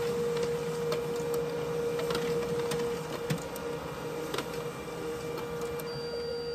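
All-in-one printer running a print job: a steady hum with scattered clicks, one sharper click about three seconds in.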